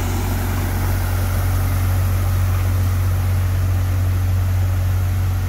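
Asphalt distributor truck running steadily with a strong low drone, over an even hiss from its rear spray bar spraying bitumen onto the gravel road base.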